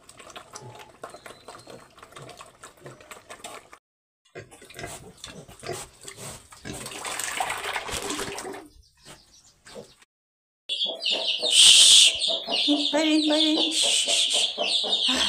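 Pigs eating, with a patter of chomping clicks and then a louder stretch of slurping at the feed. After a break about ten seconds in, chicks peep loudly and continuously while a hen clucks.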